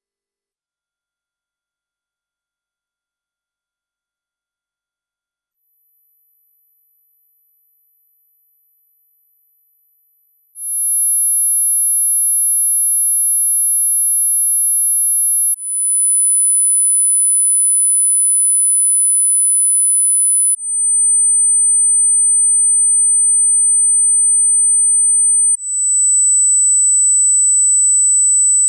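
Hearing-test sine-wave tones: a single steady, very high-pitched pure tone held about five seconds at a time, stepping a little lower in pitch at each change, six steps in all. Each new tone fades in briefly.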